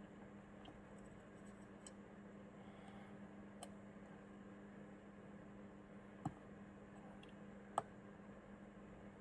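Near silence: faint room tone with a low steady hum, broken by about five faint, isolated small clicks.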